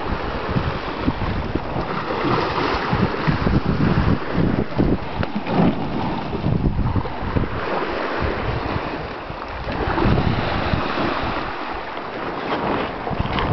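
Wind gusting across the microphone on a sailboat's deck at sea, in uneven buffeting rumbles over a steady rush of wind and sea water.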